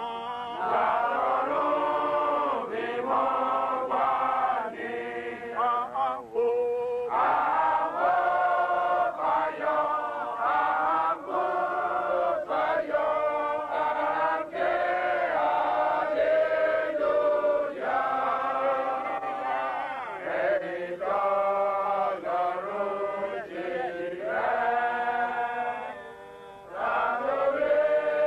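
A group of men chanting a church hymn together in unison, phrase after phrase with short breaks between them.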